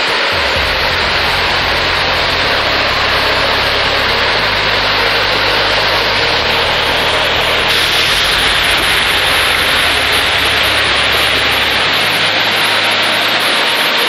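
Water of a small waterfall rushing steadily over rock cascades, with a low hum underneath that shifts in pitch a few times.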